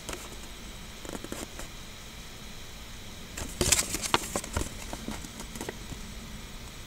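Handling noise from a paper checklist and small plastic toys: scattered rustles and clicks, with a louder run of crackles from about three and a half to four and a half seconds in, as a hand passes close over the camera.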